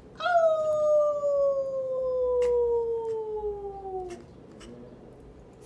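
A toy chihuahua puppy howling: one long howl of about four seconds that slides slowly down in pitch, then stops.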